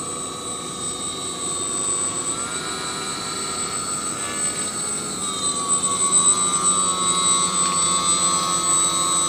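Electric motor and propeller of an RC SkyEye plane whining as it flies past low overhead. The pitch steps up a little about two seconds in and drops back about five seconds in, the throttle being changed. It grows louder in the second half as the plane comes close.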